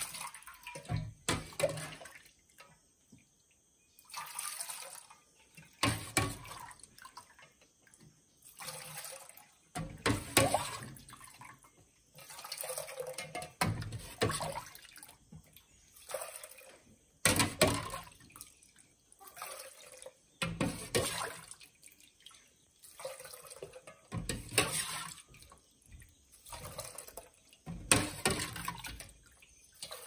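A metal ladle scoops cooled tucupi, a yellow cassava broth, from a stainless pot and pours it through a plastic mesh strainer into another metal pot, over and over every few seconds. Each scoop gives a splashing pour with sharp clinks of the ladle against the pots.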